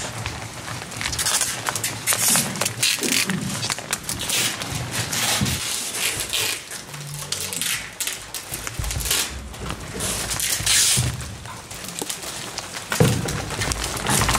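Paper rustling and crinkling as several pairs of hands handle, fold and press strips of brown paper on a table, in irregular bursts.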